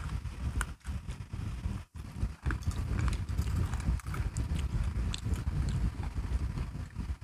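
Close-miked chewing and crunching of crunchy biscuit sticks, an uneven run of crackly crunches with short pauses between bites.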